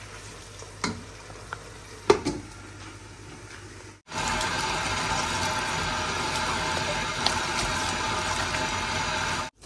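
A pot of curry is stirred with a wooden spoon, with two sharp knocks, the louder one about two seconds in. Then, from about four seconds in, a kitchen tap runs steadily into a bowl in a stainless steel sink while raw chicken pieces are rinsed by hand.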